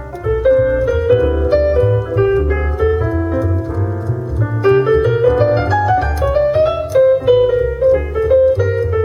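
A piano trio recording played back through a Mercedes-Benz C-Class W205's Burmester surround sound system, heard inside the car: quick runs of piano notes over a strong bass underneath.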